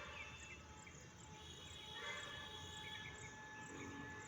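Faint background of insects chirping in a steady, regular pulse of about two to three short chirps a second, with a few brief bird-like chirps. A faint steady tone comes in about halfway through.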